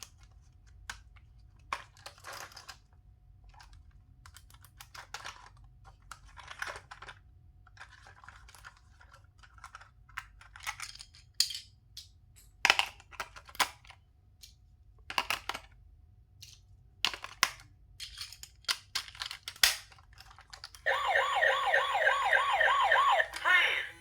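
Plastic toys and packaging being handled, with scattered clicks and rustles. Near the end a battery-powered toy switches on and plays a loud warbling siren-like electronic sound.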